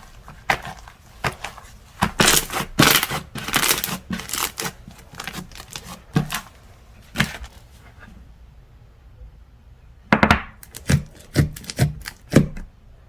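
Slime being pressed and squished by hand, making sharp, irregular clicks and pops. The clicks come thick and fast at first, pause for a couple of seconds, then come again in a short run before stopping abruptly.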